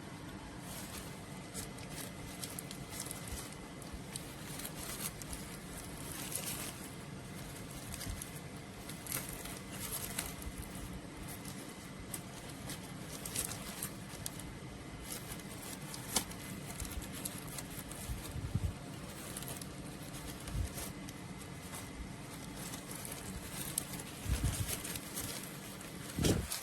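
Aquarium sand waterfall running: a steady hum under a continuous patter with scattered light clicks, and a few low thumps, the loudest near the end.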